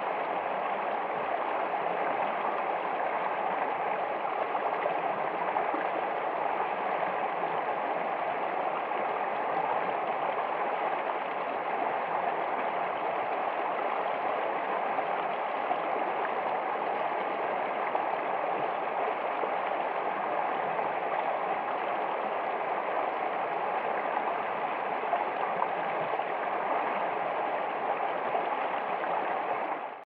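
Shallow rocky stream running over a small cascade between boulders, a steady rush of water.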